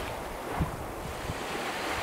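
Small waves washing over a pebble shore, a steady soft surf with a few low gusts of wind rumbling on the microphone about half a second in.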